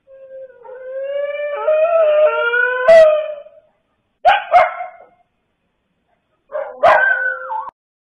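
Several dogs howling together in long, overlapping, rising notes, then two quick sharp barks, and near the end another bark followed by a short howl that bends in pitch.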